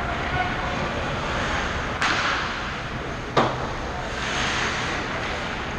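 Ice hockey play close to the net: a steady scrape and hiss of skates on the ice, a sudden spray of skate hiss about two seconds in, and a single sharp crack of stick and puck, the loudest sound, about three and a half seconds in as a shot comes at the goalie.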